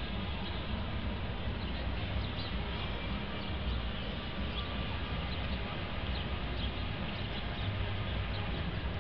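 Outdoor city ambience: a steady low rumble with small birds chirping briefly every second or so.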